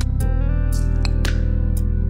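Background music: guitar over sustained low bass notes, with crisp percussion hits every few tenths of a second.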